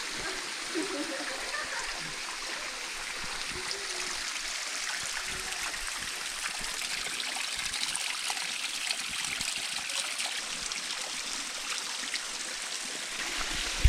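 Water falling at Rose Valley Waterfall: a steady hiss with faint scattered splashes.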